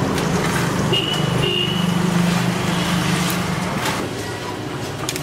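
Road traffic: a motor vehicle's engine running with a steady low hum that swells about two seconds in, and a brief high tone about a second in.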